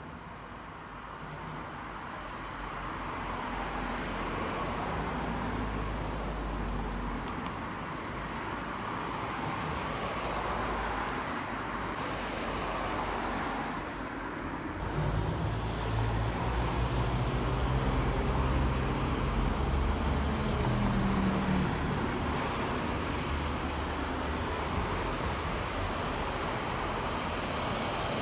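Road traffic noise: a steady hum of vehicles that builds over the first few seconds. About halfway through, a heavier vehicle's low engine drone comes in and holds for several seconds.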